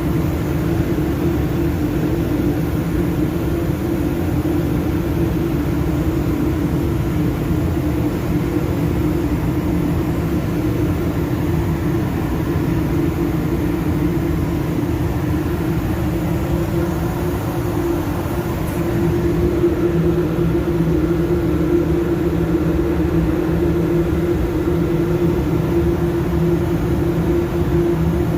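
Steady machine drone with a constant low hum, growing slightly stronger about two-thirds of the way through.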